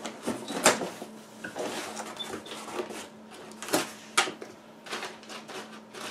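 Cardboard box flaps being pulled open and crumpled kraft packing paper rustled by hand, with a few sharp snaps: one about a second in and two close together around four seconds in.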